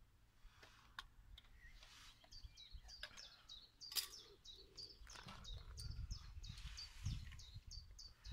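A songbird calling nearby, a long run of short, high, down-slurred notes repeated about three times a second from about two seconds in. A few faint handling clicks accompany it, with a sharp click about four seconds in.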